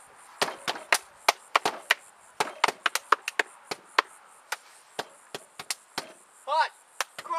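Sharp hand claps and slaps, several a second at an uneven rhythm, as in a two-person clapping game. A short pitched vocal sound comes near the end.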